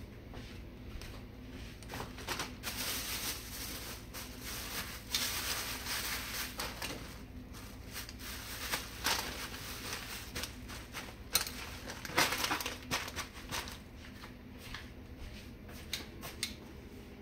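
Thin plastic bag crinkling in irregular bursts as it is handled around freshly roasted poblano peppers, with scattered light clicks and a steady low hum underneath.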